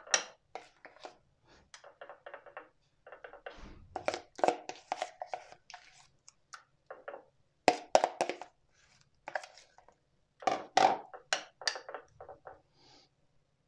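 Metal spoon scraping thick strained yogurt out of a plastic bowl and spreading it in a glass dish: a run of short, irregular scrapes and knocks, a few of them louder.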